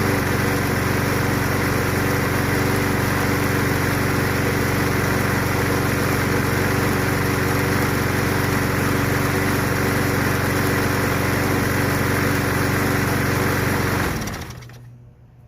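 Briggs & Stratton 190cc single-cylinder engine on a Yard Machine push mower running steadily at speed, then winding down and stopping near the end. It is running on its own after starting fluid flushed out whatever was stuck in the dirty carburetor.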